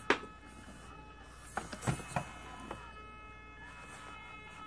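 Mini electric RC crawler (FTX Ibex) working against a toilet roll: a faint steady motor whine with a few light knocks as the truck bumps and scrabbles at it, most of them between about one and a half and three seconds in.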